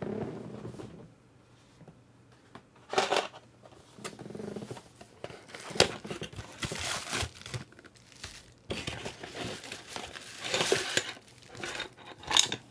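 Packaging crinkling and rustling in irregular bursts as miniatures are unwrapped and handled, with a sharp click near the end.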